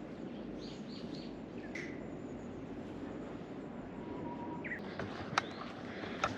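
Birds giving a few short chirps over a steady low rushing noise, with two sharp clicks near the end.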